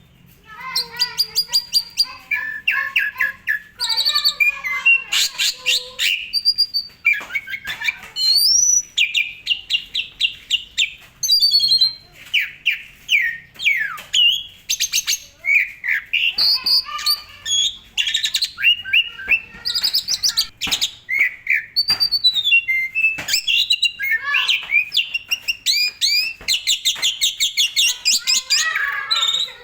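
Asian pied starling (jalak suren) in full song: a long, unbroken stream of varied chirps, whistles, fast rattling trills and notes sliding up and down, with hardly a pause.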